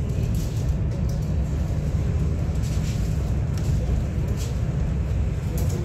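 Steady low rumble of cabin noise inside a KCIC400AF high-speed train cruising at about 345 km/h, from the wheels on the track and air rushing past the carriage.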